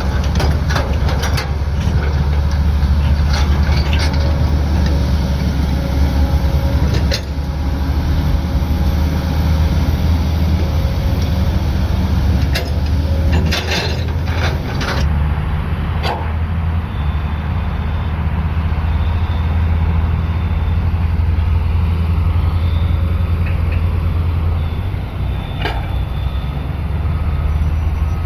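Heavy construction machinery's diesel engine running with a steady low rumble, with occasional knocks and clanks; the sound changes character about halfway through.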